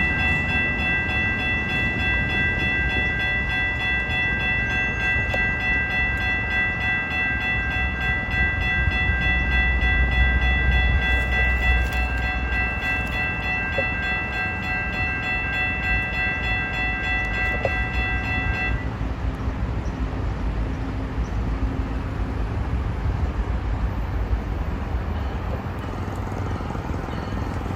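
Tri-Rail commuter train passing, its horn held in one long steady blast that cuts off suddenly about nineteen seconds in. The train's low rumble is loudest around ten seconds in and carries on after the horn stops.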